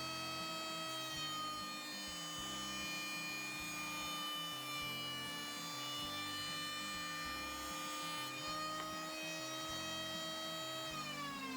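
Homemade benchtop jointer running at speed with a steady high whine, then switched off near the end, the whine falling in pitch as the cutterhead spins down.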